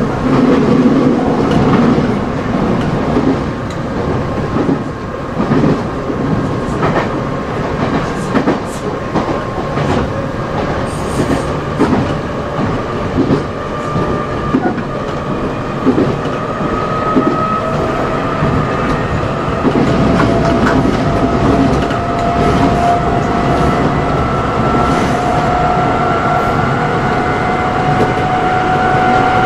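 Nankai 6000 series electric train running, heard from its leading motor car. From about halfway through, the whine of its resistance-controlled Mitsubishi traction motors climbs slowly in pitch as the train gathers speed, over the clatter of the wheels on the rails.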